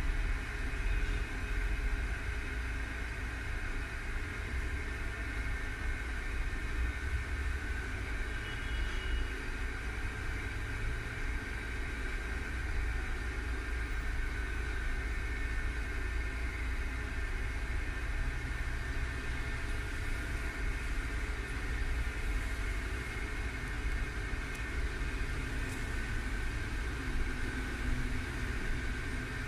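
Steady low rumble and a faint high hum heard inside the passenger saloon of a 1963 Düwag GT6 tram that is standing in traffic, with street traffic outside.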